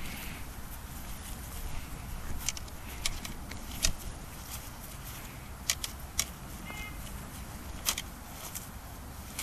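Black synthetic practice swords (jian) clacking together in sparring: a handful of sharp, irregular knocks over a steady low outdoor rumble.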